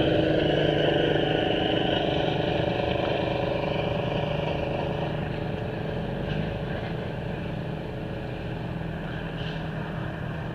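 A motor vehicle engine running steadily, gradually getting fainter.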